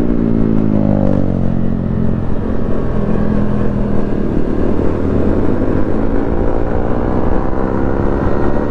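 A small 110cc commuter motorcycle's single-cylinder engine running under way, heard from the rider's seat. Its pitch drops over the first couple of seconds, holds, then climbs again near the end, with wind rush on the microphone.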